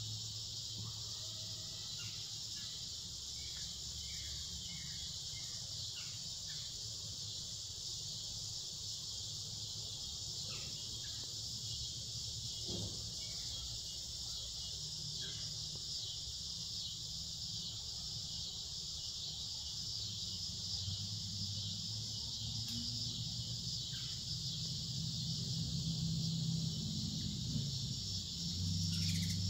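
Steady, unbroken chorus of evening insects, a high even trill with no pauses. A few faint chirps sound over it early on, and a low hum grows louder in the last ten seconds.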